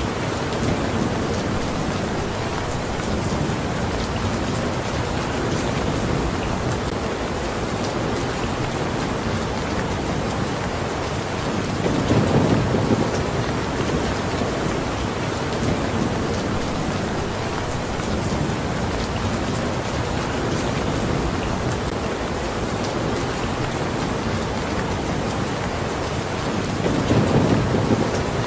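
Steady rain falling on a surface, with two brief low rumbles of thunder, one about twelve seconds in and one near the end.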